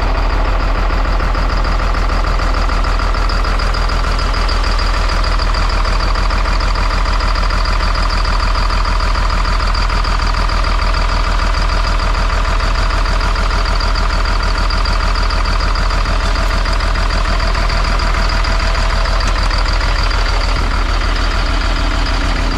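Caterpillar C7 diesel engine idling steadily, heard close up in its engine bay, with a steady high whine over the engine note. It is running on a freshly installed replacement turbocharger.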